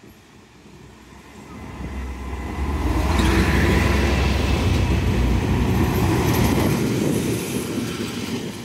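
Train of yellow track maintenance machines, including a Plasser & Theurer 09-3X tamping machine, passing close by: a heavy low rumble with the noise of wheels on the rails. It builds over the first three seconds, is loudest in the middle and fades near the end as the machines move away.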